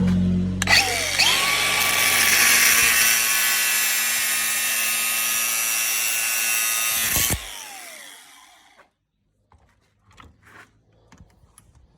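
Electric grinder switched on and spinning up, grinding steadily on the steel flex-shaft cable for about six and a half seconds, then switched off and winding down with a falling whine, followed by a few small clicks of handling.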